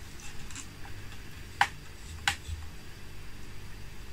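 Two light, sharp clicks about two-thirds of a second apart over a quiet room background: small handling knocks of balsa kit parts being glued.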